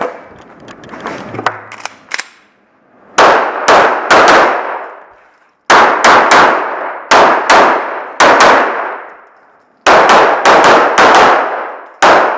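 A Glock 34 9mm pistol fired in three rapid strings of shots, each shot with a long ringing echo, with pauses of a second or two between strings. There are a few faint clicks in the first couple of seconds before the first shot.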